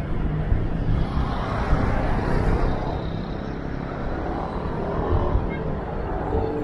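Steady road noise from riding along a busy road in traffic: a rumbling mix of the moving vehicle, passing cars and motorcycles, and wind on the microphone.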